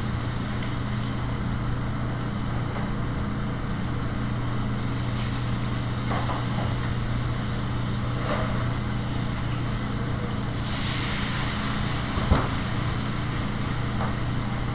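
Steady drone of a commercial kitchen exhaust hood and gas range, with a low hum. About eleven seconds in, a burst of sizzling rises for about a second, followed by one sharp knock.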